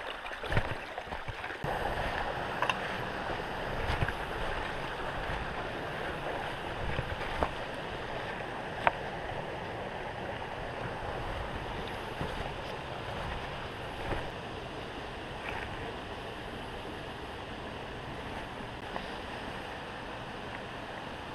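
Shallow creek water running steadily over rocks, with a few scattered clicks and low thumps.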